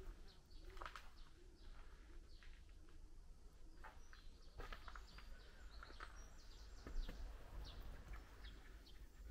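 Faint bird chirps with a few scattered light taps or crunches over a low steady rumble; the sharpest tap comes about seven seconds in.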